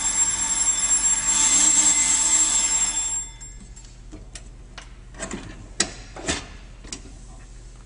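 Electric timer bell of a waffle dog baker ringing continuously, the signal that the 3-to-4-minute cook is done; it cuts off about three seconds in. A few sharp metal clicks and knocks follow as the baker's grids are rotated back by the handle.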